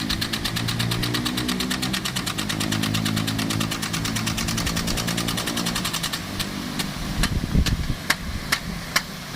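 Small engine of a water pump running steadily with a fast even pulse. From about six seconds in, its hum thins and sharp clicks come at uneven intervals.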